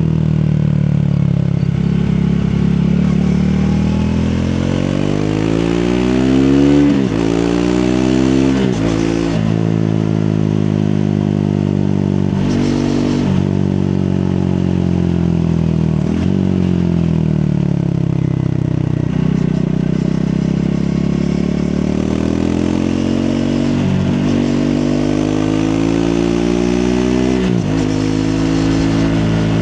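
Triumph Speed 400's single-cylinder engine on a ride: the revs climb and fall several times, with sudden drops in pitch at the gear changes.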